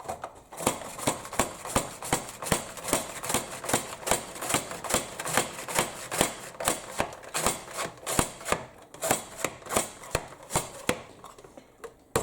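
A peeled red onion being sliced: an even run of sharp cutting strokes, about three a second, that stops near the end.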